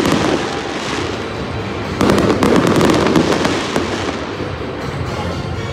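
Stadium fireworks show: a dense volley of booms and rapid sharp pops starts about two seconds in and eases off after about four seconds, leaving a steady rumble of bursts.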